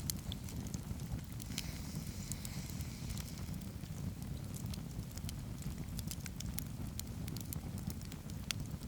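Wood campfire burning on snow, crackling with scattered sharp pops over a steady low rumble. A short hiss rises under the crackle about one and a half seconds in and fades about three seconds in.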